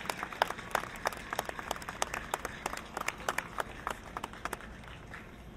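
Audience applauding: many separate hand claps that thin out and die away about four to five seconds in.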